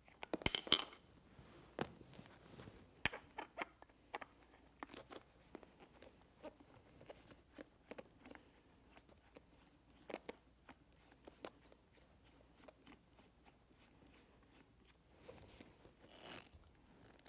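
Small metal clicks and taps from handling and twisting the metal posts and aluminium bracket of a Pilates reformer shoulder rest, in an irregular run that is loudest in a quick cluster just after the start and again about three seconds in.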